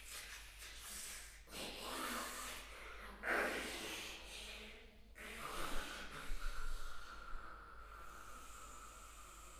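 Two voices improvising with breath-based sounds through cupped hands: several short rushes of breath and hiss, then a thin steady high tone held from about the middle on.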